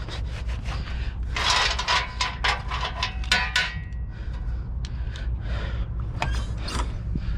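Irregular rubbing, scraping and knocking, busiest in the first half, over a steady low rumble.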